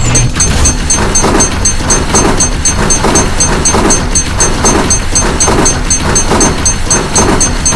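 A rumbling noise that pulses about twice a second, under a rapid high-pitched ticking.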